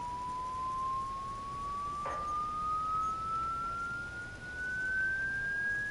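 A 4-ohm loudspeaker playing a sine-wave frequency sweep from a smartphone signal-generator app: a single pure tone rising slowly and steadily in pitch, with a faint click about two seconds in. The sweep is driving an impedance test of the speaker.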